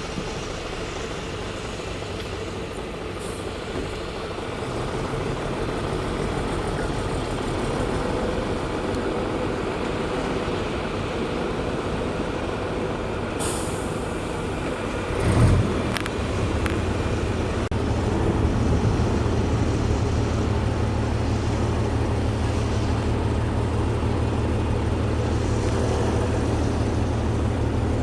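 Diesel engine of heavy road-building machinery running steadily. About halfway there is a brief hiss and then a loud burst, after which the engine note becomes deeper and louder and holds steady.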